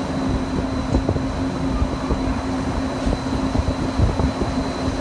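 Disneyland Mark VII monorail running along its beam: a steady electric drive hum under gusty wind buffeting the microphone at the open window.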